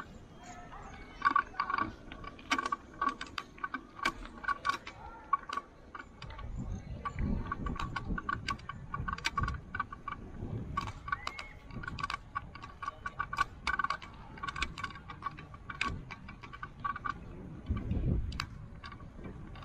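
A ridden bicycle rattling and clicking over the road, with a fast run of sharp ticks and jingles and a repeating high-pitched squeak in short pulses. A few low rumbles of wind hit the microphone, the strongest near the end.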